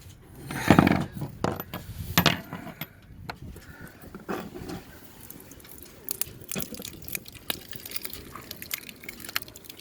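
Screwdriver prying and scraping at an aluminum deck ring, with small metal clicks and ticks throughout and a louder knock about a second in.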